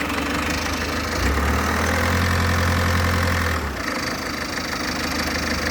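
Citroen C4 1.6 HDi four-cylinder turbodiesel running at idle, with the noise of a loose turbo heat shield, the cause of the annoying sound. A deeper drone swells about a second in and drops away after almost four seconds.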